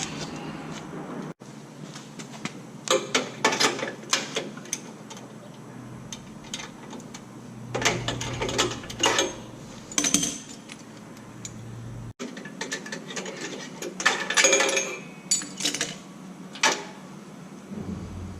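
Metal clicks and clinks of a spark plug spanner being worked on a spark plug, coming in three short bursts.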